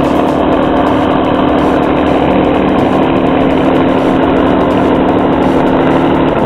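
P-51 Mustang's V-12 piston engine running at idle on the ramp, a steady loud drone that drops away near the end.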